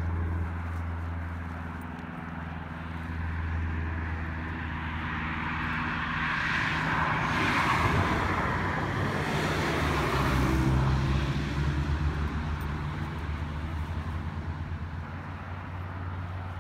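A car drives past on the road: its tyre and engine noise builds, peaks about eight to eleven seconds in, then fades. A steady low engine hum runs underneath.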